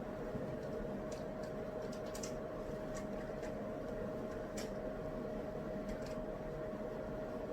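Steady white-noise hiss and hum with a constant mid-pitched tone, under scattered faint, light clicks and taps between about one and six seconds in.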